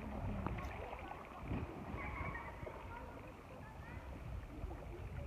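Water sloshing and lapping around two people wading waist-deep, with voices talking faintly underneath.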